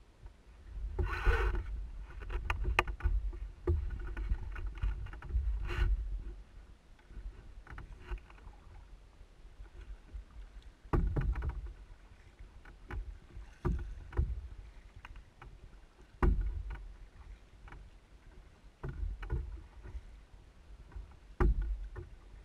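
Canoe paddling: a busy cluster of knocks and splashes in the first few seconds, then regular strokes with water splashing and a low thump through the hull about every two and a half seconds.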